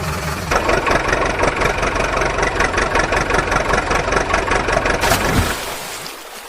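Heavy diesel engine running at idle with a fast, even clatter; a brief whoosh about five seconds in, then the sound fades out just before the end.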